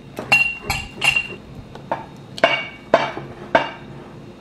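A kitchen utensil clinking against a mixing bowl while batter is mixed: about seven sharp, uneven knocks, each with a short ring.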